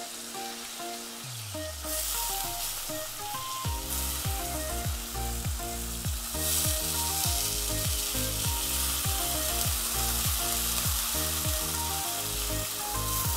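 Chopped taro stalks tipped into hot oil in a steel kadai with a spatula in the pan, sizzling; the sizzle swells as each batch goes in, about two and six seconds in. Background music with a steady beat plays under it, the beat coming in about four seconds in.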